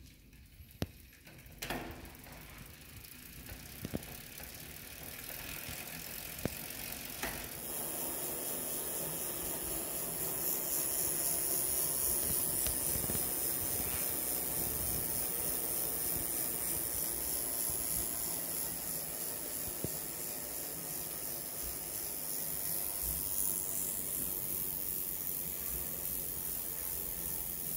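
Shimano SLX FH-M678 rear hub freewheeling as the wheel spins, its pawls ticking. There are a few separate clicks at first, then from about eight seconds in the ticking runs together into a steady fast buzz.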